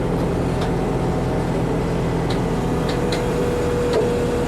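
Backhoe's diesel engine running steadily, with a few faint clicks.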